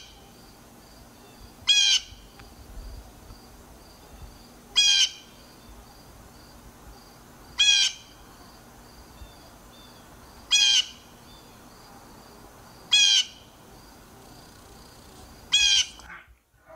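A backyard bird giving a short, harsh call seven times at intervals of two to three seconds, over a faint, fast, high-pitched chirping in the background.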